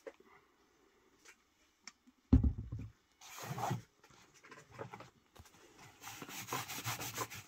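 A single loud thump a little over two seconds in, then a short rasp, and from about six seconds a steady scratchy rubbing as a sheep's-wool dauber works antique leather dye into tooled leather.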